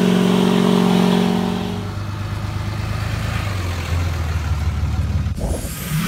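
Pickup truck engine running hard at a steady pitch under load. About two seconds in it drops to a lower note, and near the end the sound cuts off abruptly.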